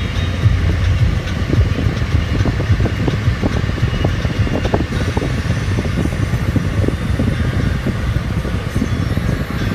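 Steady road and engine noise heard from inside a moving car's cabin, with frequent light knocks.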